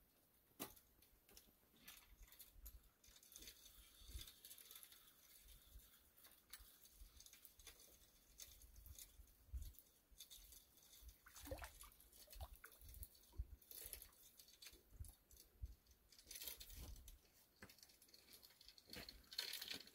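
Near silence, with faint scattered clicks and rustles.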